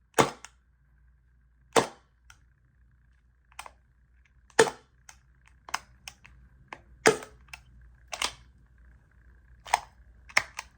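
Hudson Jericho 941 gas blowback airsoft pistol fired in single shots at an uneven pace, about seven sharp cracks of the shot and slide cycling. Quieter clicks fall between the shots.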